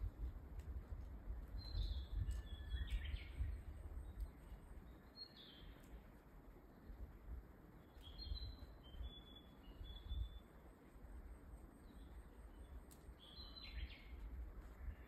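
Wild birds calling in forest: short chirping phrases every few seconds, over a steady low rumble.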